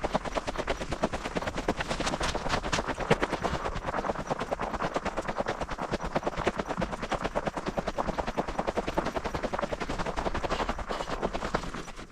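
Footsteps crunching on snow: steady, brisk walking, a dense run of crisp crunches.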